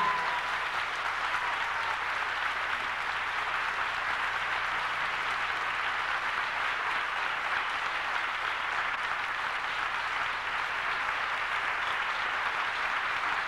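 Large audience applauding steadily, dense clapping right after the final chord of a flamenco guitar piece.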